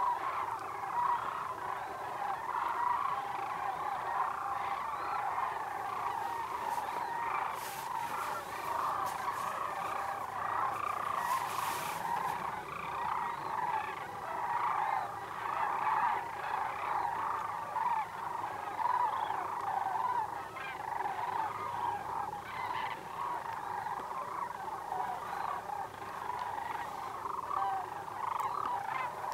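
A large flock of sandhill cranes calling without pause: a dense chorus of many overlapping calls.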